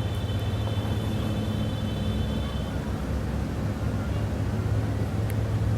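A steady low engine hum, with faint high steady tones that stop about three seconds in.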